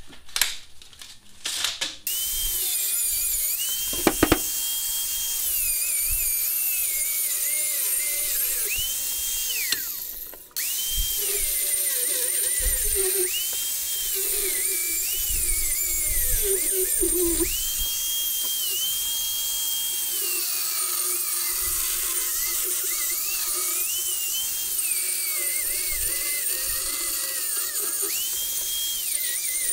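Angle grinder cutting into a steel post, its motor whine sagging in pitch as the disc bites and rising again as the load eases. A few knocks of handling come first, the grinder starts about two seconds in, and it stops and restarts briefly about ten seconds in.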